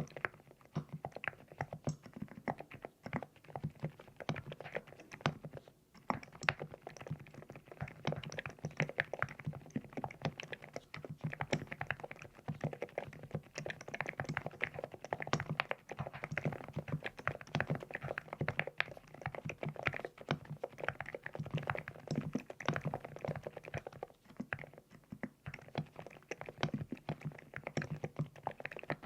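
Steady typing on a LEOBOG Hi75 full-aluminium mechanical keyboard with Nude Rose switches: a dense, continuous run of keystroke clacks that the uploader likens to pebbles, with a couple of brief pauses.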